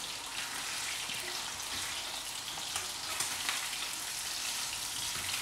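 Sea bream fillets frying in hot oil in a frying pan, a steady sizzle with faint crackles.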